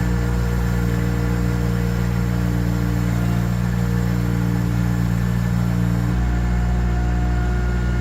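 Baumalight TRL620D mini skid steer's engine running steadily, its note changing about six seconds in.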